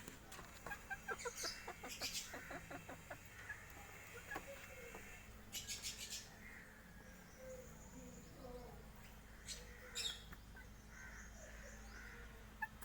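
Young chickens clucking and chirping, with a quick run of short clucks in the first few seconds and scattered calls after. A few short sharp rattles or clicks stand out, one around six seconds in and two near ten seconds.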